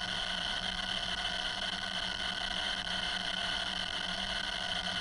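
Homemade Arduino-driven coil and neodymium-magnet speaker giving a steady, hissing, static-like noise with a strong high band, like a dial-up modem. The maker puts this down, without certainty, to the tone pot being dirty in one spot.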